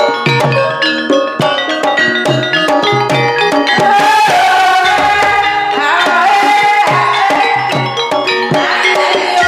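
Javanese gamelan music for a kuda kepang dance, in the Banyumas jaranan style: rapid interlocking strikes on bronze keyed instruments over kendang hand-drum strokes. About four seconds in, a held, wavering melodic line rises above the ensemble.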